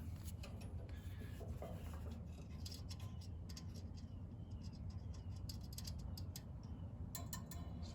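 Faint, scattered clicks and scrapes of multimeter probe tips touching a compressor's terminals and copper line, over a low steady hum. The meter gives no continuity beep: the winding is not shorted to ground.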